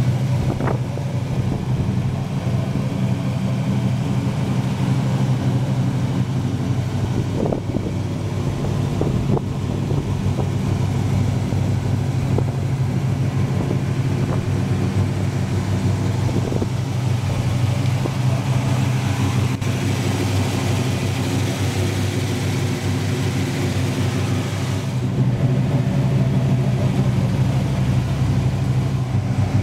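1953 Chevrolet 3100 pickup's 283 small-block V8, with an aftermarket cam and headers, idling steadily. The note gets a little louder and deeper near the end.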